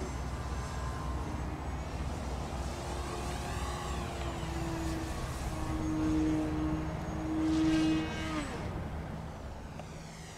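Electric motor and propeller of a Flyzone Switch RC floatplane in flight: a steady whine that swells loudest twice as the plane passes, then falls in pitch and fades a little after eight seconds.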